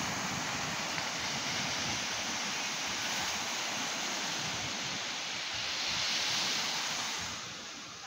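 Ocean waves breaking on a beach: a steady wash of surf that swells about six seconds in and eases off near the end.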